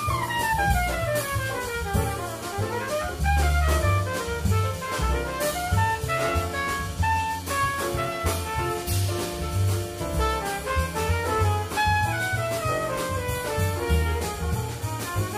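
Live small-group jazz: a trumpet lead over piano, upright bass and drum kit, with fast melodic runs falling and rising.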